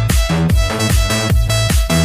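Electronic dance music with a steady kick-drum beat, about four beats a second, and gliding synth notes.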